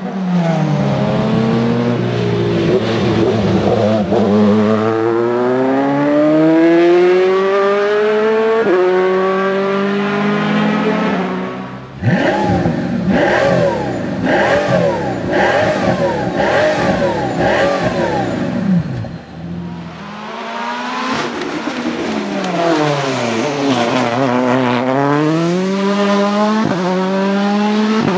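Three engine recordings in turn. First a race car accelerates hard through the gears. About twelve seconds in, a Pagani Huayra's twin-turbo V12 is revved about five times in quick blips while standing still, with sharp clicks between. About eight seconds from the end, a Volkswagen Polo R WRC rally car's turbocharged four-cylinder engine drops in pitch, then rises again and shifts up quickly.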